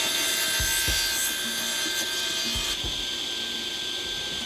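Wadkin AGS 10-inch table saw, fitted with a 2.2 kW single-phase motor, running with its blade cutting through a thin wooden board. The cutting noise stops about two-thirds of the way in, leaving the saw running on with a steady whine.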